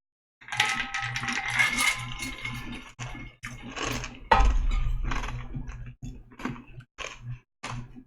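Stiff cards being handled and laid down: a run of short clicks and taps, with a heavier knock about four seconds in.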